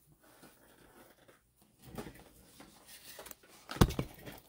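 Faint rustling and small clicks from handling, then a sharp, loud knock near the end as the camera is grabbed and moved.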